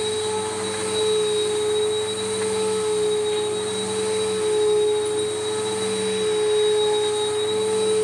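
Bissell Powerforce Helix 1240 upright vacuum cleaner running with a steady motor whine, its level swelling and dipping slightly as it is pushed over a rug.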